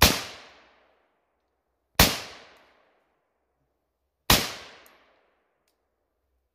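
AR-15 rifle chambered in .450 Bushmaster firing three single shots, roughly two seconds apart, each with a short echo dying away within about a second.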